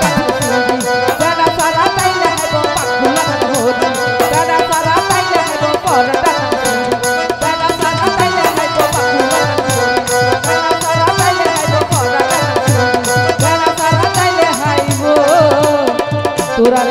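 Live band music for a Bengali regional folk song: a steady hand-drum beat with tabla-style bass strokes that slide down in pitch, under melody instruments.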